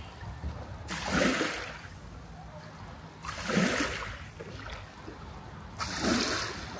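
Lake water lapping and splashing against the mooring pier, three rushing surges about two and a half seconds apart.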